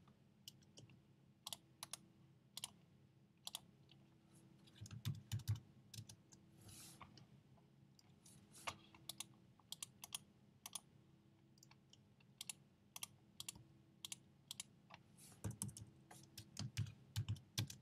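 Faint, irregular keystrokes on a computer keyboard: single taps and short runs, with a quicker cluster near the end. These are keys being pressed while editing a line of text in a drawing program.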